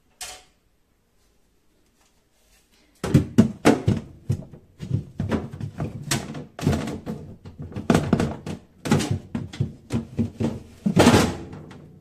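Plastic refrigerator crisper drawer being pulled out and pushed back into place: a run of knocks, scrapes and rattles of plastic against the fridge's interior, with the loudest knock near the end.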